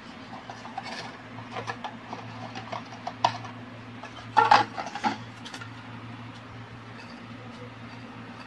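Small plastic containers being handled: irregular light clicks and rustles, with a louder clatter about four and a half seconds in, over a steady low hum.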